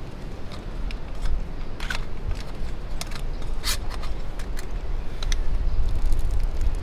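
Small steel camping pot being handled, giving a few sharp metallic clicks and clinks, the loudest about two seconds and about three and a half seconds in, over a steady low rumble.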